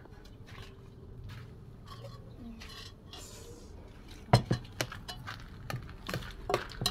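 Dishes and utensils clinking and knocking as food is dished up. A quick run of sharp clinks starts about four seconds in.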